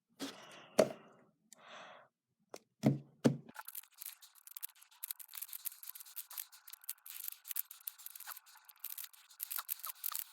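X-Man Tornado V3 speed cube being turned fast in a solve: a dense, continuous stream of quick plastic clicks and clacks from the turning layers, starting a few seconds in after a couple of knocks.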